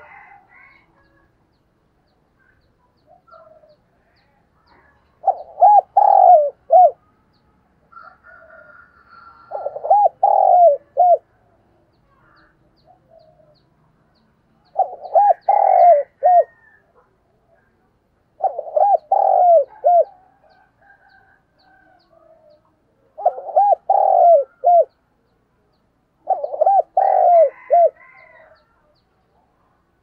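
Spotted dove cooing: six phrases, each a quick run of three or four short coos, repeated roughly every four to five seconds. Faint chirps from other birds fall between the phrases.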